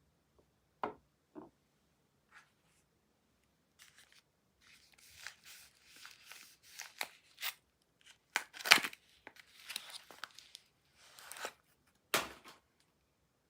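Soap packaging being unwrapped by hand: the wrapper rustles and tears in a run of short crackly strokes, with a few sharp snaps, the loudest about nine seconds in.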